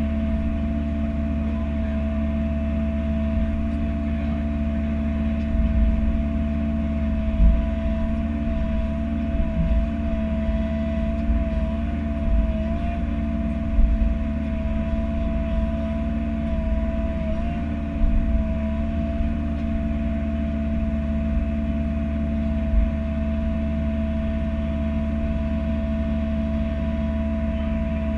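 Bobcat E42 mini-excavator's diesel engine running steadily under a working load, with a thin steady whine and a strong low rumble. Occasional dull thuds come through as the machine digs.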